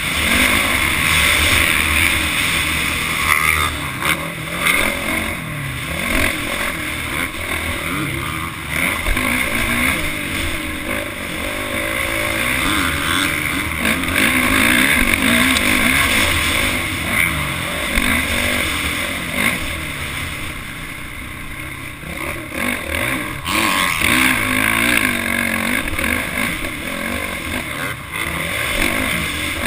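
Motocross bike's engine revving hard and easing off over and over as it is ridden around a dirt track, heard from a camera mounted on the bike, its pitch rising and falling with the throttle and easing for a quieter stretch about two-thirds through.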